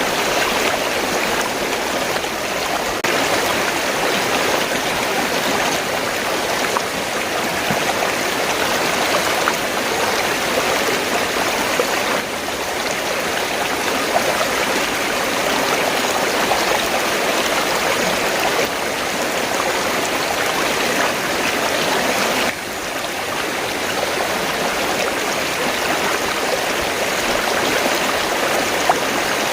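Steady rushing of flowing river water, with its level shifting suddenly a few times.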